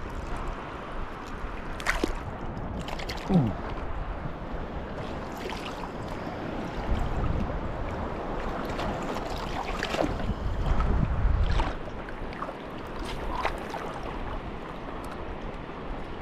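Shoreline water washing, with wind rumbling on the microphone and gusting twice in the middle. Scattered light clicks throughout, and a brief falling squeak about three seconds in.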